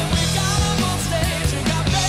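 Background rock music with a singing voice over a steady drum beat.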